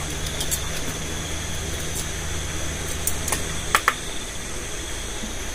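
A few light clicks and knocks of handling, over a steady low hum that stops about two-thirds of the way through. A constant high-pitched chorus of night insects runs underneath.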